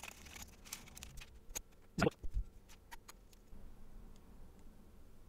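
Small clicks and taps of electronic components and a circuit board being handled on a wooden desk, with a chip pressed into the board, and one louder knock about two seconds in.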